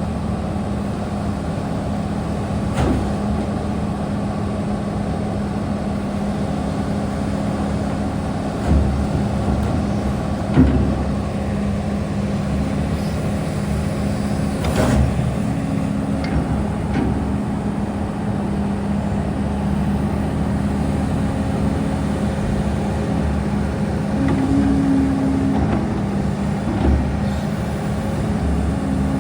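Doosan DX300LC-5 hybrid excavator's diesel engine running steadily, with a few sharp metallic knocks and clunks over it.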